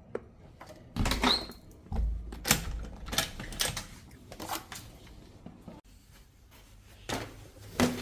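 A run of sharp clicks and knocks from handling a hotel room door and its latch, with two louder knocks near the end.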